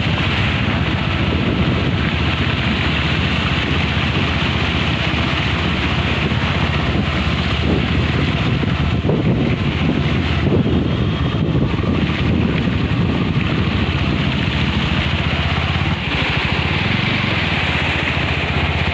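Motorbike engine running steadily while riding, with wind on the microphone.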